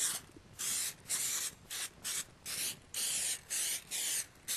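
Aerosol can of Pam cooking spray hissing in a quick series of short spurts, about two a second, as it coats a raw steak.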